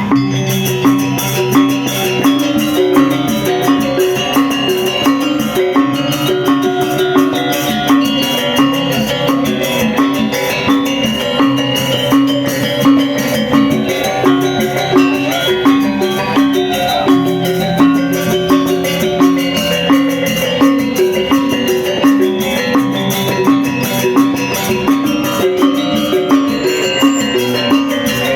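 Balinese gamelan music: metal-keyed percussion ringing in a fast, evenly repeating figure over drums and clashing percussion.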